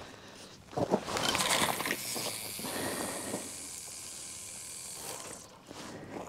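Fixed-spool fishing reel wound quickly to bring the line in: a steady whirring hiss that starts after a couple of knocks about a second in and stops shortly before the end.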